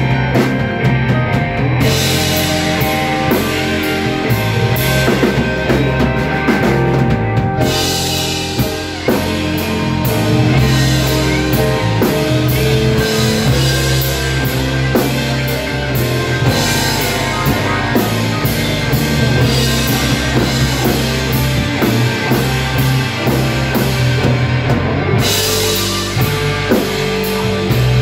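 A live blues-rock band playing loudly, with drum kit and electric guitar. The cymbals drop out briefly near the start and a couple of times later.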